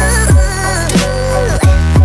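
Background electronic music with a heavy beat: deep bass hits that drop in pitch, held bass notes and a wavering synth melody.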